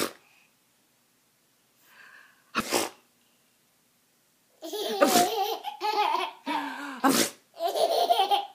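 Two short, sharp sneezes, one right at the start and one about two and a half seconds in, then from about four and a half seconds a young child laughing hard in repeated peals.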